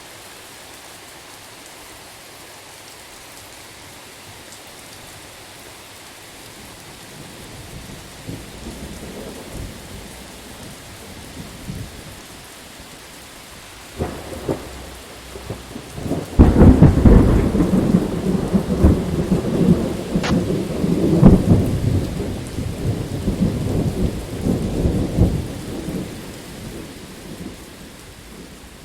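Steady rain falling, with a thunderstorm: distant thunder starts rumbling about eight seconds in, a sharp crack comes halfway through, then a loud thunderclap breaks into a long crackling rumble that slowly fades near the end.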